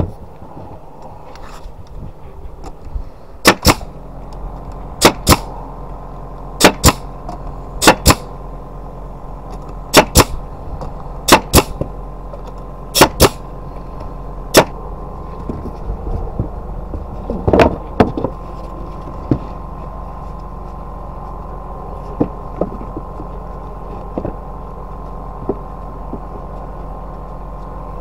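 Pneumatic nail gun firing nails into pine boards: about eight sharp double snaps roughly one and a half seconds apart, then lighter knocks. A steady motor hum from the air compressor runs underneath.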